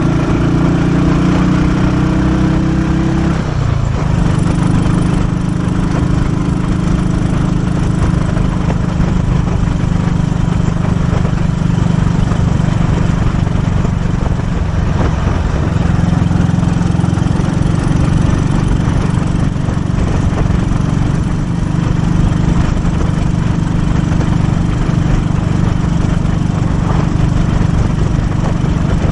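1943 Royal Enfield WD/CO's 350cc single-cylinder overhead-valve engine running steadily at cruising speed under a rider, with wind and road noise. The engine note breaks off briefly about four seconds in and picks up again.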